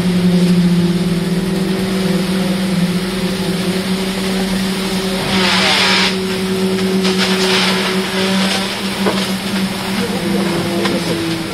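Concrete being poured and compacted into a rebar cage: a steady machine drone from the internal poker vibrator and pour machinery, with its pitch shifting slightly near the end. A short rush of noise comes a little past halfway.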